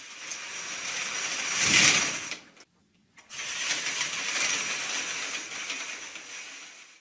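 Sound effect of a stage curtain being drawn: a long swishing, rattling draw that swells to its loudest just before it stops about two and a half seconds in, then after a short break a second draw that runs on at an even level.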